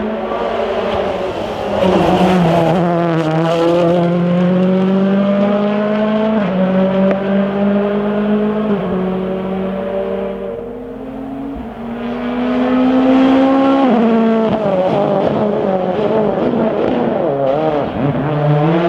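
Rally car engine at full throttle, the note climbing and stepping down at gear changes several times, easing off and dipping around the middle, then revving up again.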